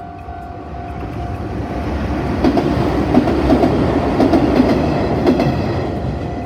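Daiyuzan Line electric train passing close by, growing louder to a peak about halfway and then fading, its wheels clacking regularly over the rail joints.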